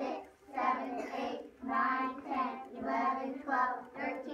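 A class of young children counting aloud together in a slow, sing-song chant, about two numbers a second.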